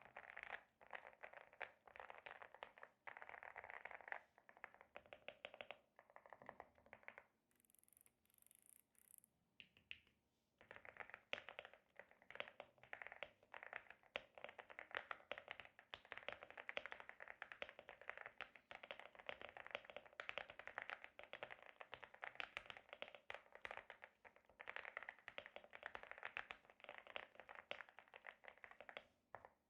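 Fast typing on a Leobog Hi75C Pro mechanical keyboard with an aluminium case, Gateron Yellow G Pro V3 switches and PBT keycaps: a dense run of key clacks that stops for about three seconds some seven seconds in, then carries on.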